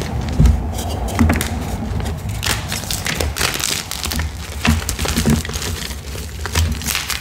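Ader gym chalk blocks, dyed, crumbled and crushed by hand into loose chalk powder: dense dry crackling and crunching, with a few soft thumps as chunks are squeezed and dropped.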